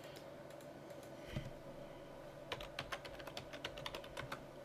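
Typing on a computer keyboard: one tap about a second in, then a quick run of about a dozen keystrokes as a password is entered.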